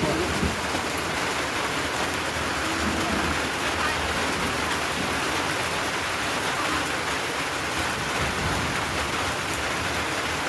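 Steady rain falling: a dense, even hiss of rain on surfaces with no let-up.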